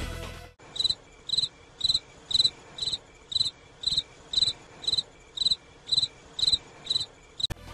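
Cricket chirping sound effect: short, evenly spaced chirps, about two a second, the stock gag for an awkward silence. Background music cuts off just before the chirps begin and comes back in at the very end.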